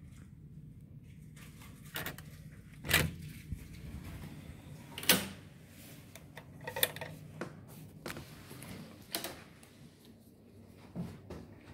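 Hotel room door being unlocked and opened with a key card: a handful of sharp clicks and clunks from the lock, handle and door, spaced a second or two apart, over a faint low hum.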